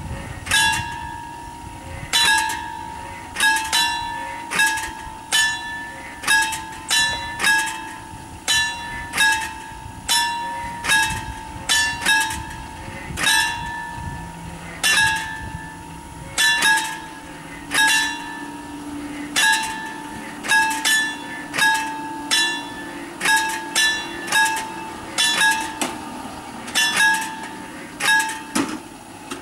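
Level-crossing warning bell ringing with repeated metallic strikes, about one to two a second and often in quick pairs, each ringing on one clear tone: the crossing is closing for an approaching train. A low steady hum joins about halfway through, as the barrier arms come down.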